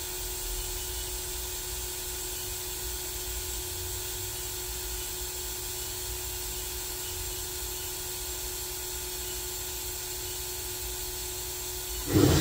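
Haas VF0 vertical machining center humming steadily with a few held tones. Near the end its 7,500 RPM spindle speeds up with a rising whine, being run up to 5,000 RPM.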